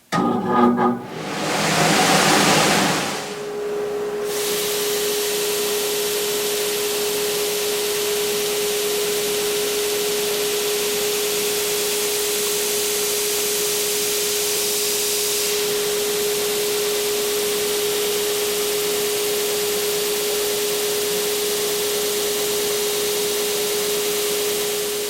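General 15-005 edge sander with dust extraction running, sanding a wooden part flat: a rush of noise as it starts, then a steady hiss with a constant whine.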